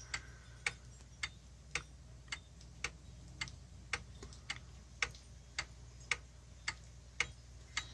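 Pendulum wall clock ticking steadily, about two ticks a second. The escapement's sharp clicks sound through a quiet room.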